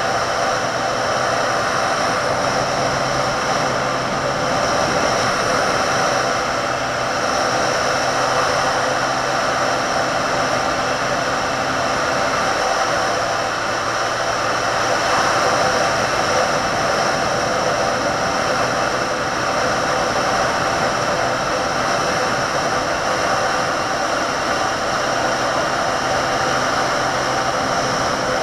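Wind rushing over the microphone of a camera on a moving motorcycle, with the Benelli 150S's single-cylinder engine running steadily underneath at cruising speed.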